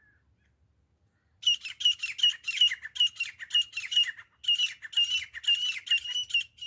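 Grey francolin calling: a loud, fast run of harsh repeated notes, about four a second, starting about a second and a half in, with a brief break midway.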